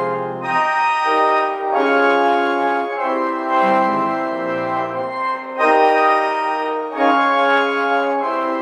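Church organ playing full, sustained chords that change about every second, with deep bass notes joining at times.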